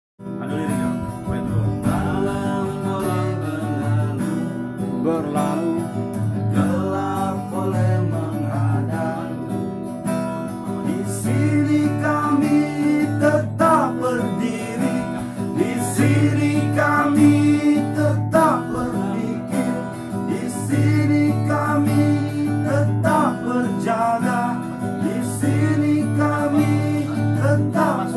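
Cutaway acoustic guitar strummed in a steady rhythm, with a man's voice singing a melody over it.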